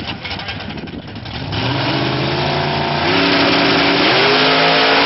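Drag-racing cars, a Dodge Viper and a Corvette, launching hard off the line about a second and a half in. The engine note gets much louder and climbs in steps as the cars pull away.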